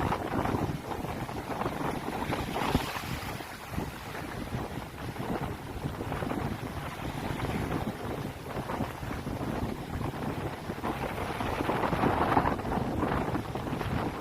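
Strong sea wind buffeting the microphone in gusts that swell and ease every few seconds, with the wash of waves underneath.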